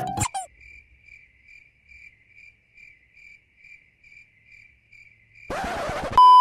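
Crickets comedy sound effect: a thin chirp pulsing about three times a second for some five seconds, right after the music ends on a rising glide. Near the end a whoosh, then a loud steady beep for about half a second.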